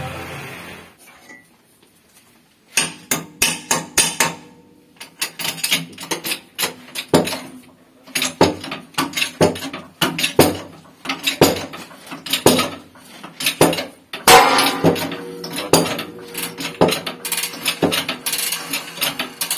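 Repeated sharp metal clanks and clicks, several a second with a brief metallic ring after some, from a hydraulic shop press being worked to press the wheel bearing off a Mitsubishi L300 rear axle shaft.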